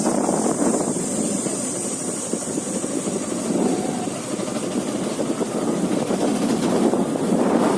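Motorbike on the move: its engine running steadily under a rough, fluctuating rush of riding noise.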